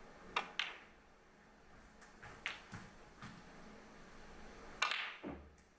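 Snooker balls clicking: the cue tip striking the cue ball and the cue ball hitting an object ball, sharp single clicks. There are two quick clicks at the start, one in the middle, and two more near the end.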